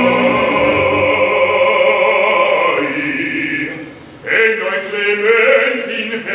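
Live opera with orchestra: a full sung and orchestral chord is held and fades about three seconds in. After a brief lull, a baritone begins singing a declaimed line in Italian over the orchestra.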